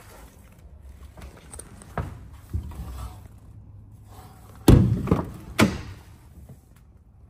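Clicks and thunks from a pickup's fuel filler door and rear door being worked by hand: a couple of light knocks, then two loud thunks about a second apart.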